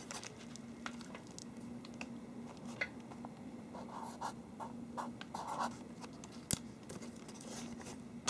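Marker pen writing on a paper sticky note: faint scratching strokes with a few light clicks.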